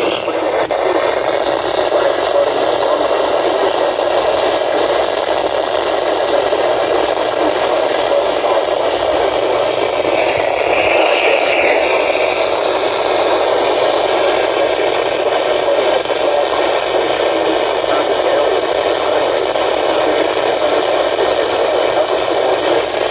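Steady radio static: a weak-signal hiss from a weather-radio receiver between broadcast alert messages, held at a constant level.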